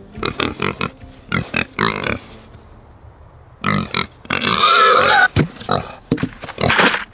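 Feeder pigs grunting in short, separate calls, with a louder noise lasting about a second, about four seconds in.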